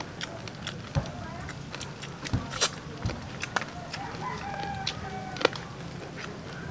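A rooster crowing, over scattered sharp clicks of cooked land-crab shells being cracked and picked apart by hand.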